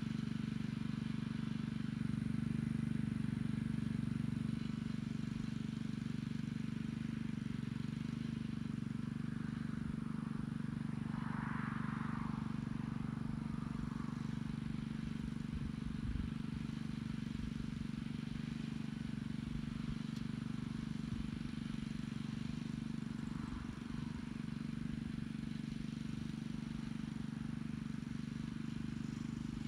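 Small gas tiller engine running steadily as it pulls an Earthquake hiller attachment through the soil of a potato row.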